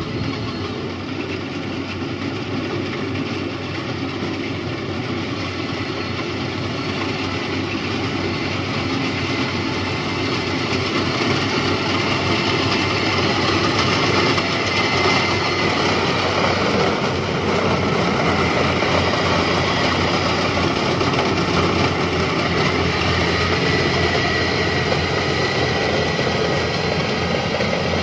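Yanmar rice combine harvester's diesel engine and machinery running steadily, growing a little louder about halfway through.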